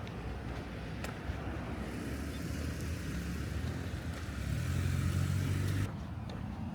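A road vehicle passing close by: tyre and engine noise building over a few seconds, with a low hum growing louder, then cutting off abruptly near the end.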